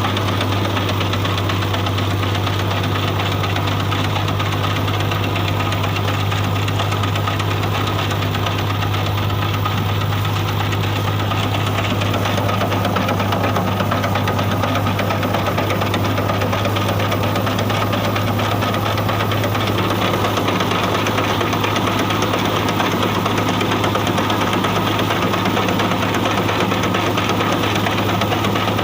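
Al Ghazi tractor's diesel engine running steadily with a constant low hum and mechanical clatter.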